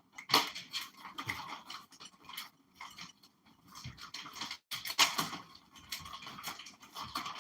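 A dog chewing and gnawing on a chew, with irregular scratchy, crunching bites; the loudest come shortly after the start and about five seconds in.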